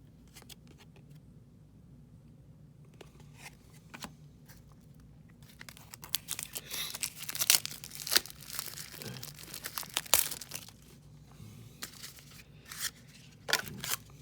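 A foil trading-card pack wrapper being torn open and crinkled by hand: irregular crackling and rustling that starts about three seconds in and is loudest in the middle.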